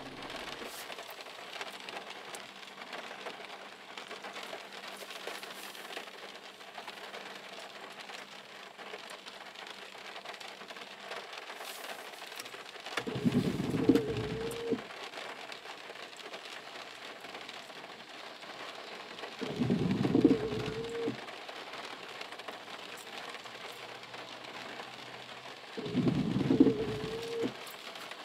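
Steady heavy rain on the car's windshield and roof, heard from inside the car. The windshield wipers sweep three times about six seconds apart, each sweep a low rubbing sound about a second and a half long with a brief squeak of the blade on the glass.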